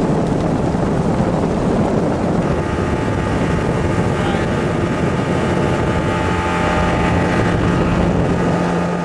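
Motorboat engine running steadily, with a low hum that grows clearer in the second half.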